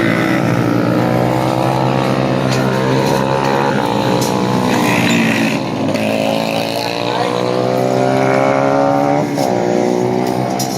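Race motorcycle engines running on the nearby track. One engine note climbs steadily for a few seconds and then drops sharply near the end.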